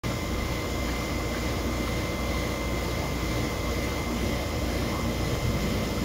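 Steady hum and hiss of aquarium equipment, an air pump driving the tank's airline, with a faint steady high whine.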